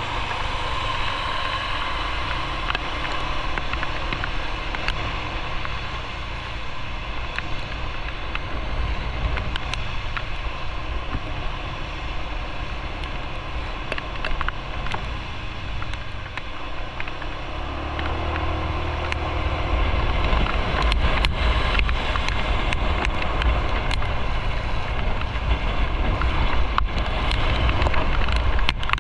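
A motorcycle being ridden on the road: the engine is running under heavy wind rush on the microphone. The low wind rumble grows louder about two-thirds of the way through.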